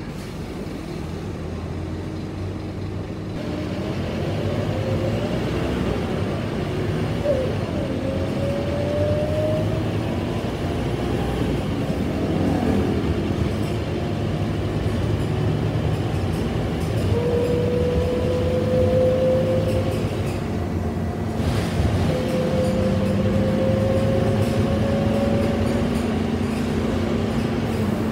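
Scania K230UB city bus heard from inside the cabin, its engine and driveline pulling away and getting louder. A whine climbs in pitch several times as the bus gathers speed.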